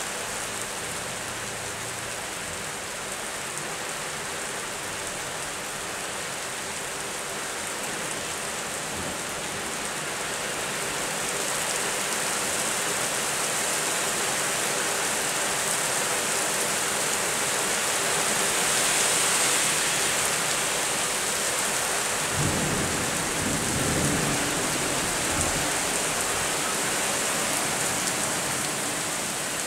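Steady rain that grows louder about a third of the way through, with a low rumble of thunder about three-quarters of the way in.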